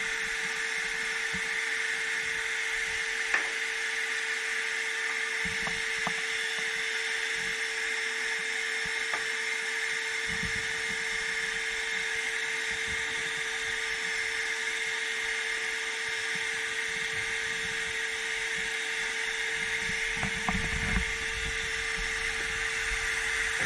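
Shop vac motor running at a steady pitch with a constant whine and rushing air, with scattered low knocks and bumps.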